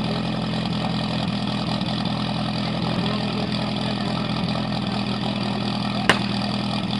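Portable fire pump engine idling steadily on its base. A single sharp crack about six seconds in.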